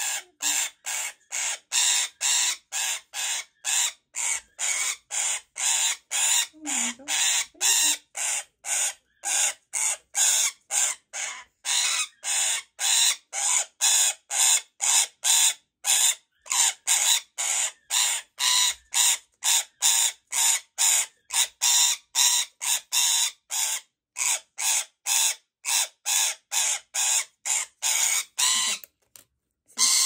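Rainbow lorikeet screeching in a steady rhythm, about two calls a second, in protest at being held and crop-fed through a tube. The calls stop near the end.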